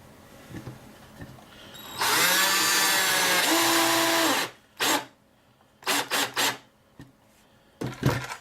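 Power drill driving a screw into a wooden 2x4: one long run starting about two seconds in, its tone shifting partway through, then several short blips of the trigger.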